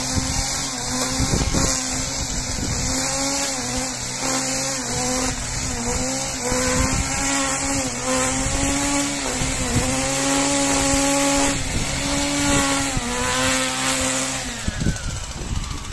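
Handheld petrol brushcutter fitted with a wire weed brush running at high revs, its steady pitch dipping briefly several times as the brush bites into weeds in the paving joints. The engine drops off near the end.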